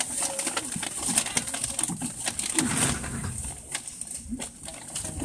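Pigeons cooing in short, low calls every second or two, among scattered clicks and knocks.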